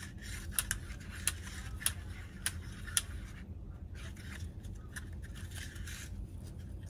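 Husqvarna 288 XP recoil starter being wound by hand: the white plastic pulley is turned counterclockwise in its orange plastic housing to tension the recoil spring. It makes light clicks about every half second for the first few seconds, over soft rubbing and handling noise.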